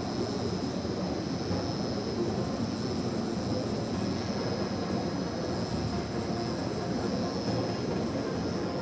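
Tattoo machine running at a steady hum while its needle works black ink into synthetic practice skin.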